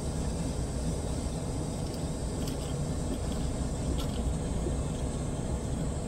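Portable air conditioner running with a steady hum, with a few faint clicks about two and a half and four seconds in.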